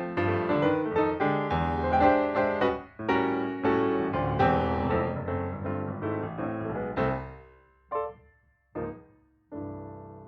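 Piano music: a flowing passage of chords that slows near the end into a few separate struck chords and a final chord left ringing and fading out.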